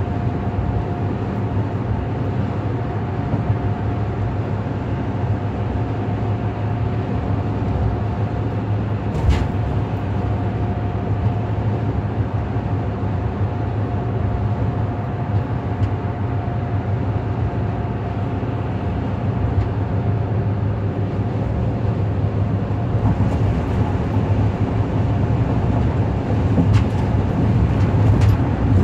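Inside a car cruising on the freeway: a steady low rumble of road and engine noise, with a thin steady whine over it and a single click about nine seconds in.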